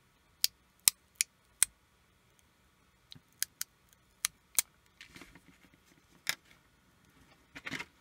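Small plastic parts clicking sharply as a thin black plastic cover is worked loose from a DLP pico projector's optical engine: four quick clicks in the first two seconds, then scattered single clicks and a short cluster near the end.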